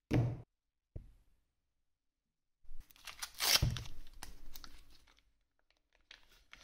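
Paper wrapper of a block of Lurpak butter being peeled open, crinkling and tearing for about two and a half seconds, loudest in the middle. A short thump comes at the very start.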